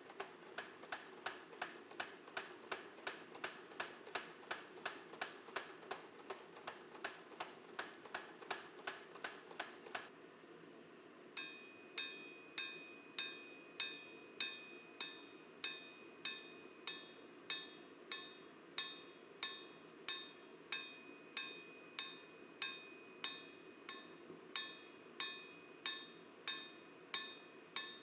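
Hammer blows on steel over an anvil while forging a nakiri kitchen knife blade, a quick run of light strikes at about three a second. After a short pause about ten seconds in come heavier, slower blows at under two a second, each leaving a bright metallic ring.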